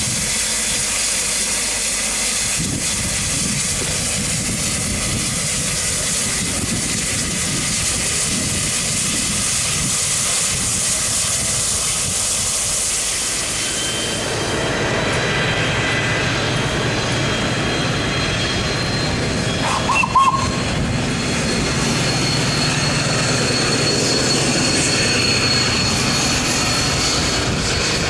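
Steam hissing steadily from around the cylinders of the Peppercorn A1 Pacific steam locomotive Tornado. About halfway through, the hiss gives way to a lower, steady rumble from the locomotive, with a brief sharp sound about two-thirds of the way in.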